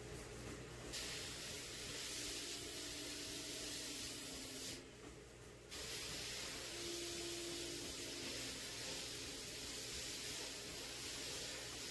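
Abrasive blast cabinet gun blasting a small metal part, a steady hiss of compressed air and grit. The blasting stops for just under a second about five seconds in, then resumes.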